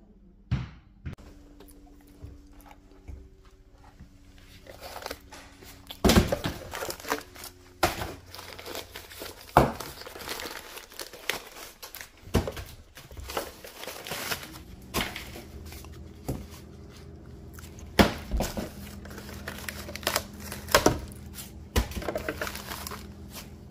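Plastic bags crinkling and rustling as things are handled, with irregular knocks and clunks of items being moved among a cardboard box of bottles and a refrigerator door bin.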